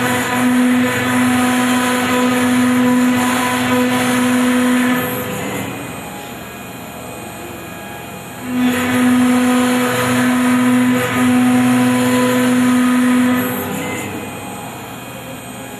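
CNC router's spindle running while a V-shaped engraving bit cuts letters into a wooden board. There are two spells of louder cutting with a steady hum, each about five seconds long: the first ends about five seconds in and the second starts about eight and a half seconds in. Between them the spindle runs more quietly.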